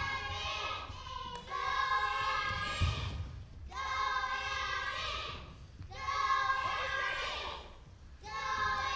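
An audience, many of them children, shouting and cheering in drawn-out waves about every two seconds, like a chant, with a dull thud or two underneath.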